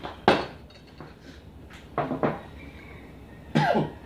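A man coughing in three short bouts, the middle one a double cough.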